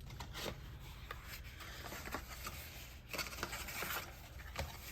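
Paper and packaging handled and rustled, with scattered light ticks and a longer rustle about three seconds in.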